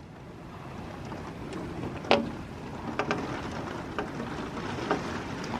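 Steady outdoor wind noise with wind buffeting the microphone, and a few faint short ticks scattered through it.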